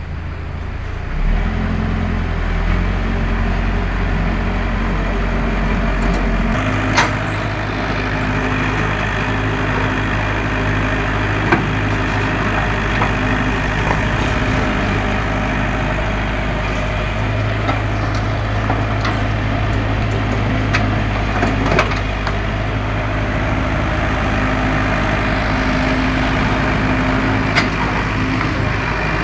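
Heavy diesel engine of an excavator running steadily, its note changing about a second in and again around six seconds in, with a few sharp clanks during the work.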